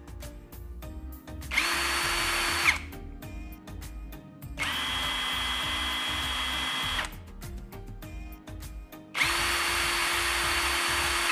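SUNC Tools 48V cordless impact wrench free-spinning with no load, triggered three times in steady motor whines of one to two seconds each, the middle run lower in pitch. Background music underneath.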